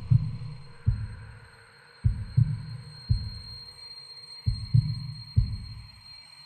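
Deep, heavy thumps in clusters of two or three, repeating about every two seconds like a pounding heartbeat, over a thin steady high-pitched whine. This is horror-film sound design.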